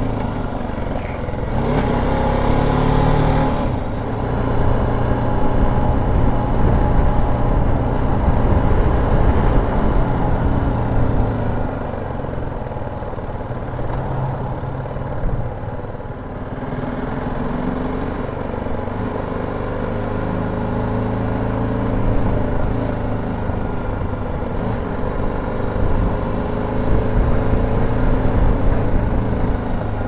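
Motorcycle engine running while the bike is ridden, its pitch rising and falling with the throttle, over a constant low rumble of wind on the microphone.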